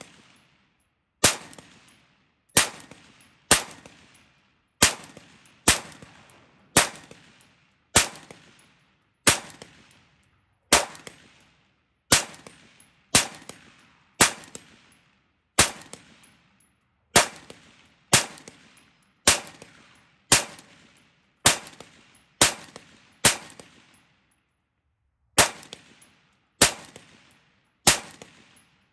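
Custom Centurion Arms AR-15-style rifle fired semi-automatically in slow, steady fire: about two dozen shots roughly one a second, each with a short echo, with a pause of about two seconds before the last few.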